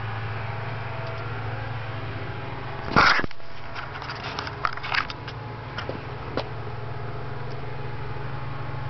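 Domestic cat giving one short, loud meow about three seconds in, close to the microphone, followed by a few light clicks and taps.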